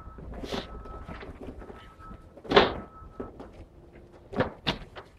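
Cardboard boxes of mangoes being handled and set down by hand, giving irregular thuds and knocks; the loudest comes about two and a half seconds in, with two more near the end.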